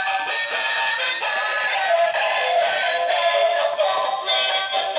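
Battery-powered robot Mickey Mouse toy playing its built-in electronic song, a synthesized singing voice over a jingly tune, through a small tinny speaker.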